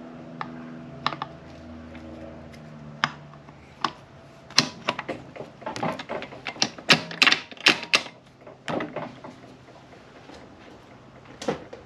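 Irregular metal clinks and clacks as a gearshift housing and its linkage are set onto a manual transmission case, with a quick cluster of sharp clicks in the middle seconds.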